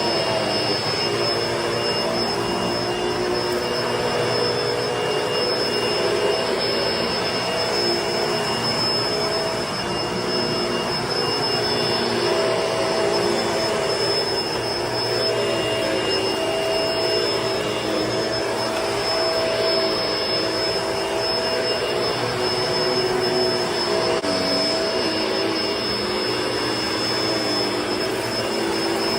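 Vacuum cleaner running steadily over carpet: a constant rushing noise with a high steady whine and a lower motor hum that wavers slightly in pitch as it is worked back and forth.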